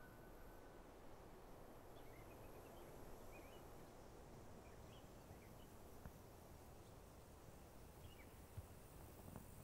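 Near silence: faint outdoor ambience with a soft hiss and a few faint, scattered bird chirps.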